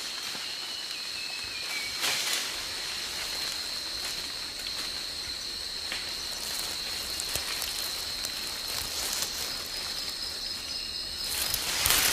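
Tropical rainforest ambience: a steady high-pitched insect drone over a hiss of forest noise, with a faint falling whistle near the start. Leafy branches rustle briefly about two seconds in and again more strongly near the end.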